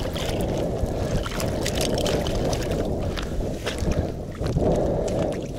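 Irregular crunching and knocking with sloshing water, from breaking out ice and slush around a fyke-net trap's stake, over wind on the microphone.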